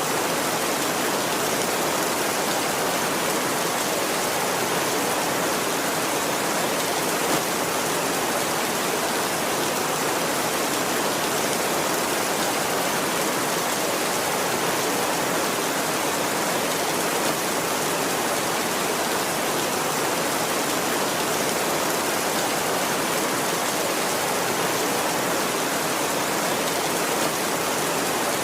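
Heavy rain falling steadily on a tin roof, an even, unbroken hiss of drops with no thunder.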